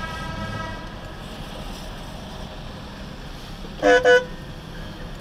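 Car horns in stopped traffic. A held horn note cuts off just under a second in; about four seconds in, a close, loud horn gives two short honks in quick succession.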